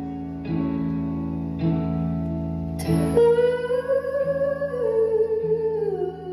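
Live band music: electric guitar chords struck three times over a steady low bass. From about halfway, a long wordless sung note holds and then slowly slides down in pitch.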